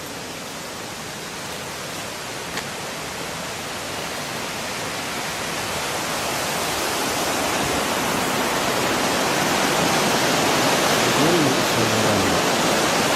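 Steady rush of flowing mountain water from a stream or falls, growing steadily louder over about ten seconds.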